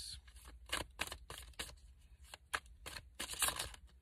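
A deck of oracle cards being shuffled by hand: irregular soft slaps and riffles of cards, with a quick run of them a little past three seconds in.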